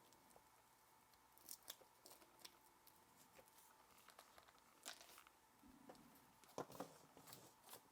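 Near silence with a few faint crinkles and ticks of product packaging being handled as a cable is taken out of its box.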